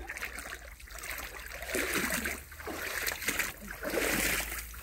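Shallow stream water splashing and sloshing around the legs of a person wading through it, with two slow splashing steps about two seconds apart.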